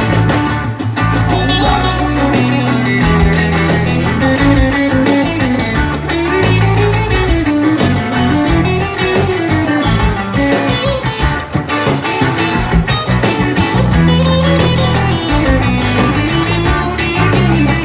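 Live rock band playing an instrumental section: an electric guitar plays a lead line with wavering, bent notes over bass and drums through a loud PA.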